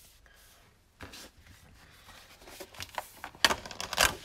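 Sheets of 12x12 scrapbook paper being handled and flipped, rustling and sliding against each other from about a second in, with two sharper paper snaps near the end.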